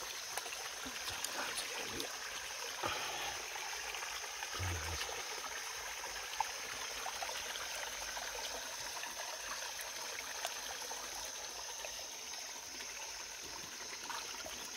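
Shallow stream water trickling and flowing steadily over a constant high-pitched hiss, with a few faint clicks and a soft low thump about four and a half seconds in.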